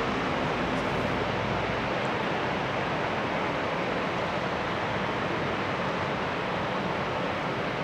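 Steady rushing jet-engine noise from an Airbus A320-family airliner rolling out on the runway after landing.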